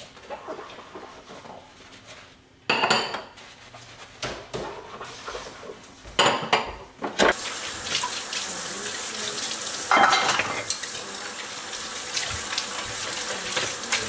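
Ceramic dishes clinking and knocking in a kitchen sink. About seven seconds in, the tap comes on and water runs steadily as bowls are rinsed under it.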